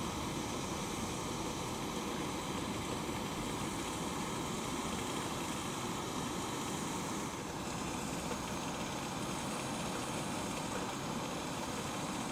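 Portable gas stove burner running with a steady hiss, heating water towards the boil.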